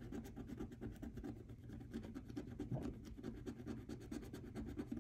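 A scratcher coin scraping the coating off a scratch-off savings card in a fast, steady run of faint, short strokes, many to the second.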